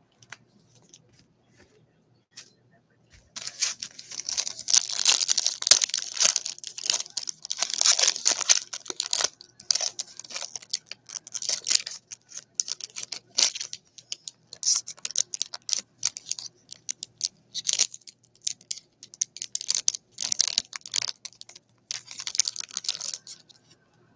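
Foil wrapper of a Stadium Club baseball card pack crinkling and tearing as it is ripped open and handled, in irregular bursts starting about three seconds in.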